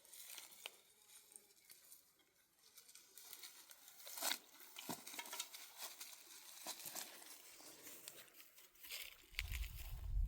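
Faint rustling and crackling with scattered light clicks and taps, like dry material being handled or stepped on, with a low rumble near the end.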